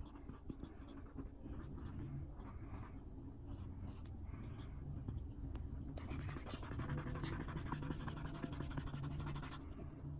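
Writing sounds: a pen or marker scratching across a surface in many short strokes, busier and louder in the last few seconds.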